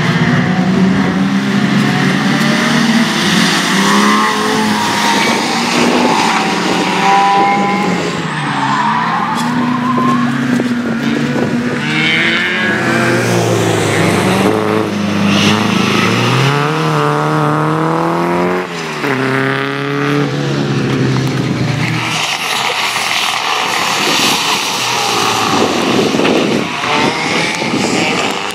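Rally cars taking turns on a wet circuit: a BMW 3 Series (E30), then a Peugeot 106 and a Peugeot 207. Their engines rev up and drop back again and again as the cars slide through the corners. Near the end the engine note gives way to a rushing hiss of tyres on the wet track.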